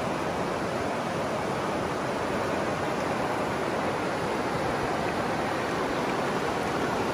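Shallow river running over rocks and small riffles: a steady rush of moving water.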